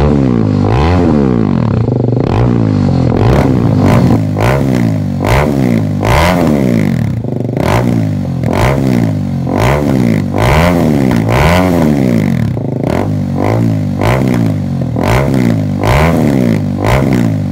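BMW G310 R's 313 cc single-cylinder engine revved through an aftermarket headerback exhaust with a black knight muffler, in quick throttle blips a little more than once a second, the pitch rising and falling with each blip.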